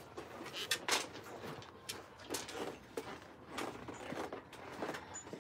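Faint, irregular small clicks and light knocks over a quiet background.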